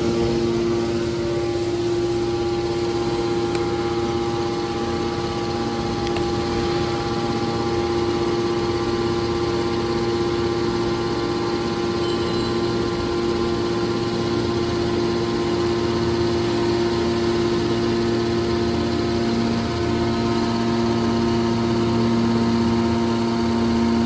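Electric motor and hydraulic pump of a scrap metal baler's power unit running, a steady, unchanging hum.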